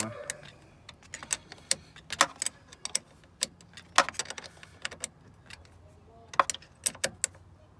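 Metal spanner clinking and clicking on the positive battery terminal clamp as its nut is tightened: sharp metallic clicks at irregular intervals.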